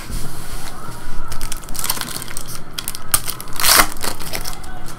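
Foil wrapper of a Bowman baseball card pack crinkling and tearing as it is ripped open by hand, in a series of crackling bursts, the loudest about four seconds in.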